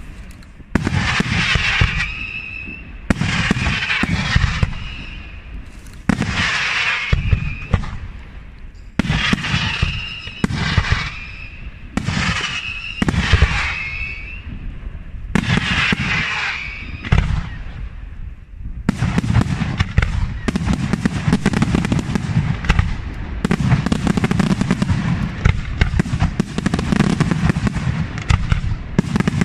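Aerial fireworks display: shells bursting in a series of loud reports about every one to two seconds, each trailed by a hiss. About two-thirds of the way in the bursts run together into a dense, continuous barrage.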